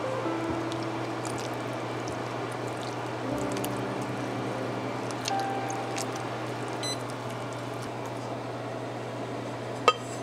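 Onion salt koji bubbling thickly in a pot, soft pops and squelches over a steady low hum. A sharp clink near the end as the metal lid is handled.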